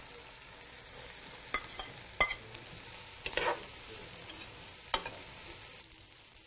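Sliced calabresa sausage sizzling in a large aluminium pot of frying bacon, onion and garlic as it is tipped in and stirred. The steady sizzle is broken by a few sharp knocks and scrapes of the spoon against the pot.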